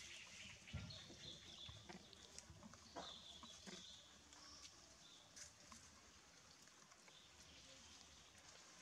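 Near silence: faint outdoor ambience with a few soft clicks and two brief high-pitched sounds, one about a second in and one about three seconds in.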